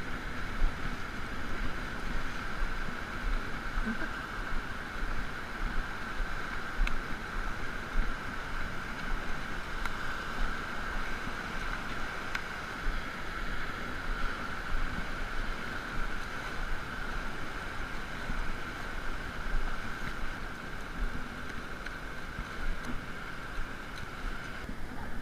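Steady wash of surf breaking in shallow water, with wind rumbling unevenly on the microphone.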